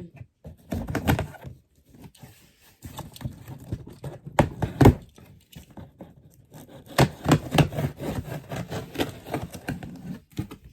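Cardboard shipping box being torn open by hand: tape and flaps tearing and scraping, with thunks as the box and its contents are handled. The loudest knocks come about four and a half seconds in.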